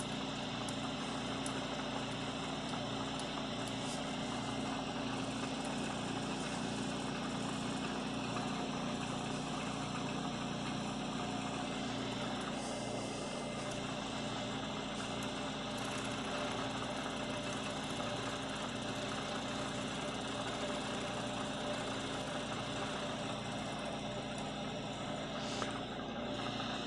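Vertical milling machine running steadily, its cutter taking a light smoothing pass along the side of an aluminum block held in the vise.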